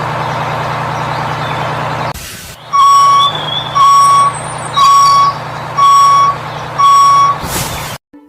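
A vehicle engine running steadily, then a reversing alarm beeping five times, about once a second.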